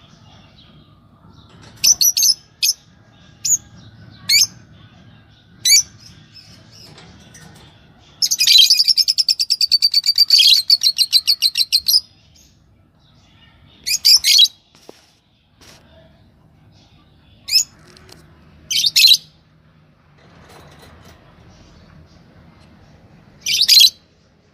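A pair of yellow Fischer's lovebirds calling: short, sharp, high chirps at irregular intervals, with a rapid chattering run of calls lasting about four seconds in the middle.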